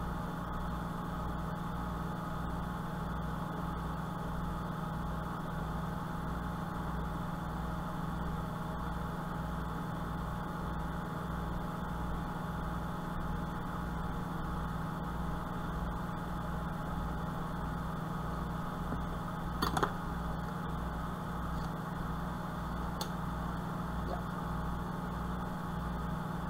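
Steady machine hum with a low throb pulsing about one and a half times a second, and a couple of faint clicks in the later part.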